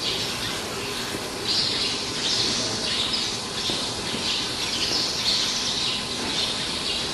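Birds chirping and squawking in repeated short calls over a steady low background hum.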